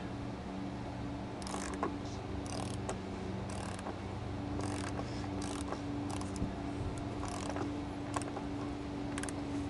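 Socket ratchet clicking in short bursts, roughly one burst a second, as it turns the oil filter housing cap on a BMW E39's engine. A steady low hum runs underneath.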